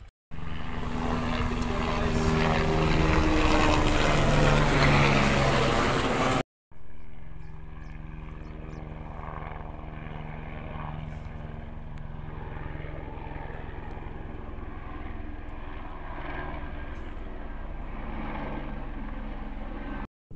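Helicopter passing close by: a loud rotor and engine sound whose pitch slides down as it goes past. After a cut it is farther off, a quieter, steady hum.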